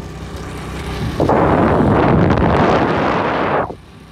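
Motorcycle engine running steadily while riding, with heavy wind buffeting on the microphone. The buffeting swells about a second in and drops away near the end.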